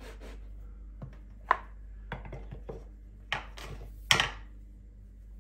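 Plastic dumpling press knocking and clacking on a stone worktop as it is pressed through rolled shortcrust pastry to cut a circle, then opened and lifted: a string of sharp taps, the loudest about four seconds in.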